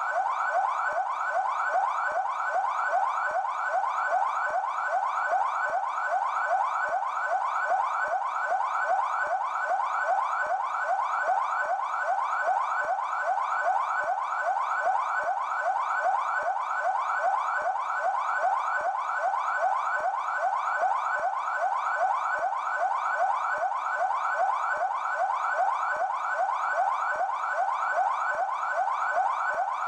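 PMESP police car siren sounding its yelp tone: a fast, evenly repeating rising wail that runs without a break.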